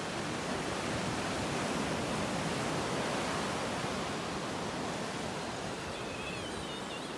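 Pacific Ocean surf breaking and washing up a sandy beach: a steady, even rush of waves and foam.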